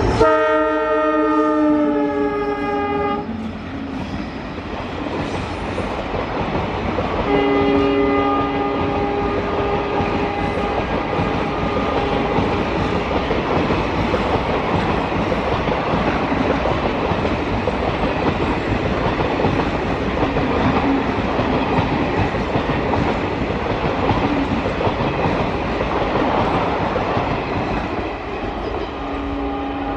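An Indian Railways EMD WDP-4D diesel locomotive sounds its horn twice as it passes: a blast of about three seconds, then a longer one about seven seconds in. Its passenger coaches then roll by with a steady noise of wheels on the rails.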